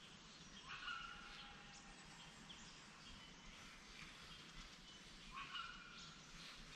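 Faint bird calls, one about a second in and another near the end, over quiet creek-side ambience.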